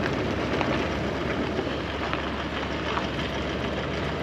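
Steady rushing noise with no clear tone and no voices, holding at an even level.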